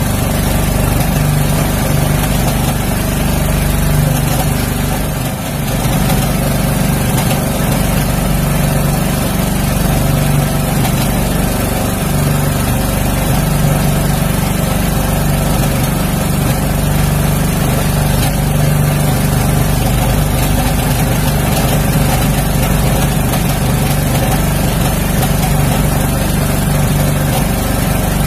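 An engine aboard a wooden outrigger fishing boat runs steadily, giving an unbroken low drone that dips briefly about five seconds in.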